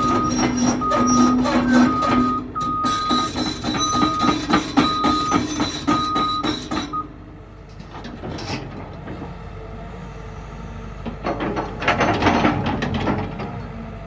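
CAT 316EL tracked excavator on the move: its travel alarm beeps at an even pace over the running diesel engine and the clanking steel tracks. About halfway through the beeping stops and the machine quiets, leaving a couple of short bouts of track clatter.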